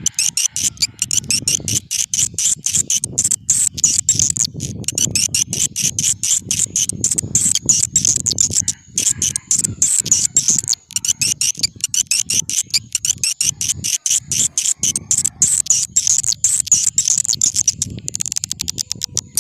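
Swiftlet call recording (suara panggil walet) used to lure edible-nest swiftlets: a dense, rapid stream of high twittering chirps, with a low rumbling layer pulsing underneath.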